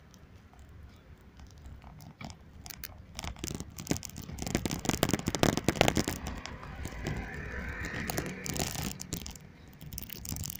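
Rustling and crackling close to the microphone, densest and loudest in the middle few seconds, over a steady low rumble.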